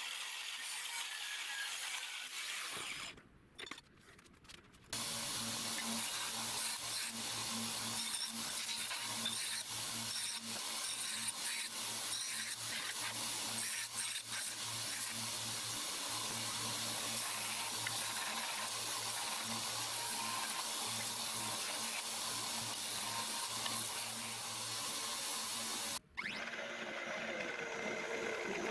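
Angle grinder cutting steel, a steady grinding noise over a low hum, broken by a near-silent gap a few seconds in. Near the end, a drill boring through a steel plate.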